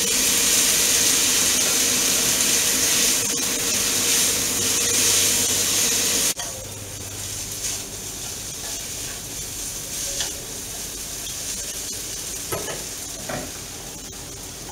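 Noodles sizzling in hot garlic oil and soy sauce in a wok while being tossed with chopsticks. The sizzle is loud at first, drops abruptly about six seconds in and carries on quieter, with a few light clicks of the chopsticks against the pan.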